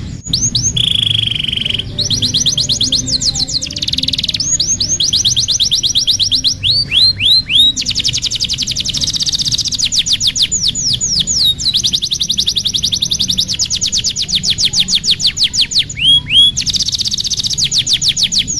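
Domestic canary singing a long, continuous song of fast trills made of rapidly repeated falling notes. The trills are broken by a few slower swooping notes and short buzzy phrases.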